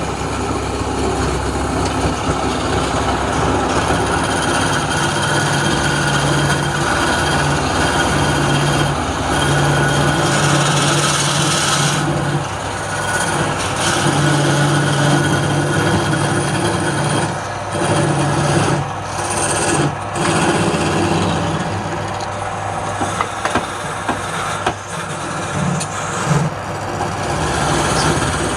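Wood lathe running with a steady motor hum while a turning tool cuts the spinning wood, the cutting noise rising and easing as the tool works, with a few short knocks in the second half.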